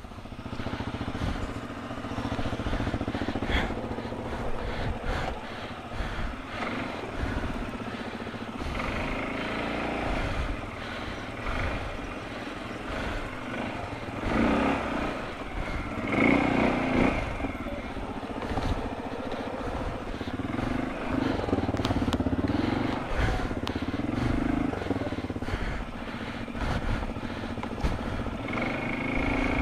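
CFMoto ATV engine running, its revs rising and falling a few times while the quad is stuck.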